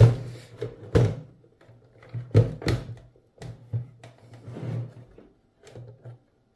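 Knocks and scraping of a battery being pushed into the plastic battery bay of an APC BE850G2-GR UPS, with its cable being tucked in. Sharp knocks at the start, about a second in and twice close together around two and a half seconds in, with softer handling noises between.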